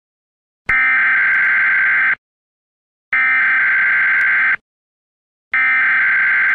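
Emergency broadcast alert signal: three long, steady buzzes, each about a second and a half, about a second apart. They announce the start of an emergency broadcast.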